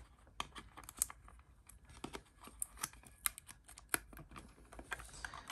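Irregular small clicks and taps of hard plastic as hands work a clear acrylic display case open.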